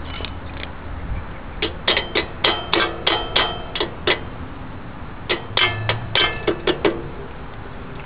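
Hammer tapping metal at a Suzuki GZ250's rear axle: two runs of quick, ringing metallic taps, about nine over two and a half seconds, then after a pause about seven more. The taps seat the axle's cotter pin.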